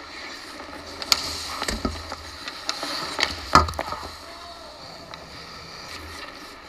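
Hockey skates scraping and carving on rink ice, with sharp clacks of sticks and puck. The loudest knock comes about three and a half seconds in, over a steady low hum.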